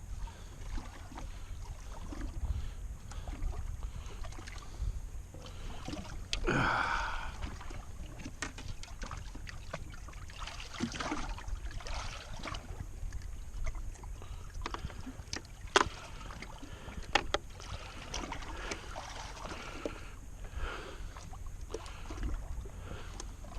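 Open-air fishing ambience: a steady low rumble with scattered small knocks and clicks of handled fishing gear. A brief louder sound comes about six and a half seconds in, and sharp clicks come near the middle.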